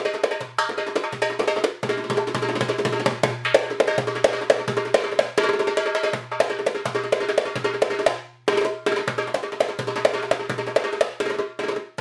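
Arabic instrumental music with busy, quick percussion strikes over a pulsing bass line. It drops out briefly about eight seconds in, then comes back.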